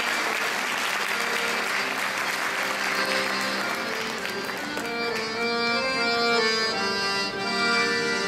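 Audience applause dying away over the first few seconds while an accordion plays, then the accordion alone playing held chords as the introduction to a Chinese folk song.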